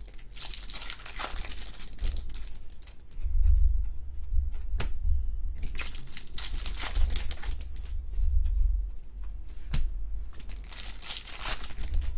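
Foil trading-card pack wrappers crinkling and tearing as packs are handled and ripped open, in three bursts, with a couple of sharp clicks and dull low knocks of hands against the desk.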